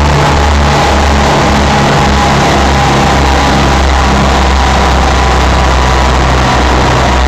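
Car engine running on a chassis dyno, heard from inside the cabin. The sound is steady, very loud and distorted.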